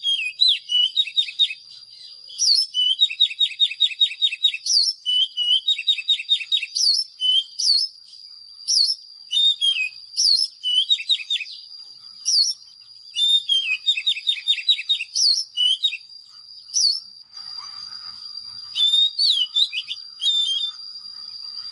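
Oriental magpie-robin song: quick runs of repeated trilled notes alternating with sharp, rising whistled notes, over a steady high thin tone. Fainter, lower scratchy notes join in after about 17 seconds.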